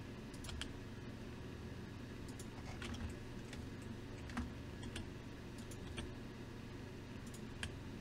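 Computer keyboard and mouse being operated: about a dozen short, irregular clicks spread unevenly over a steady low hum.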